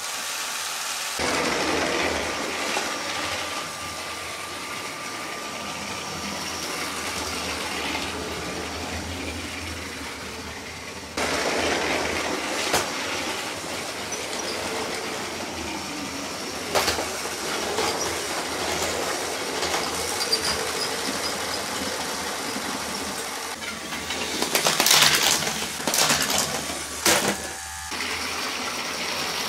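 Motorised Lego trains running on plastic track, a steady whir with wheels clicking over the track joints. A loud clatter of plastic bricks comes from a crash about 25 seconds in.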